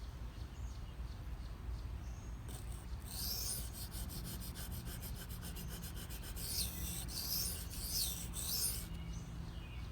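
S30V steel blade of a Benchmade Mini Barrage stroked heel to tip across a wet Shapton Pro 320-grit water stone, a repeated scraping rasp, while working up a burr along the edge.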